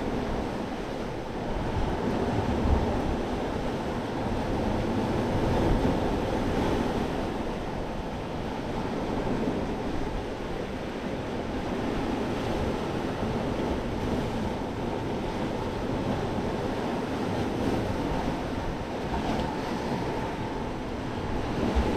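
Sea surf washing against a rocky shore in slow swells, with wind buffeting the microphone.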